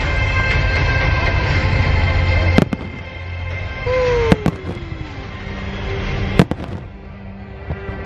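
Fireworks display: a dense, continuous crackle of bursting shells, with a few sharp loud bangs, the loudest about two and a half and six and a half seconds in. Music plays underneath.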